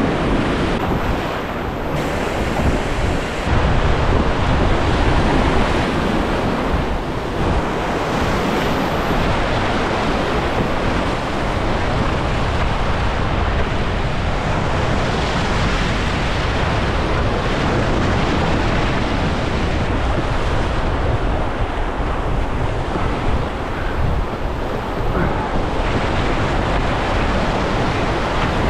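Whitewater rapids rushing loudly and steadily around a canoe running through them, with wind buffeting the microphone.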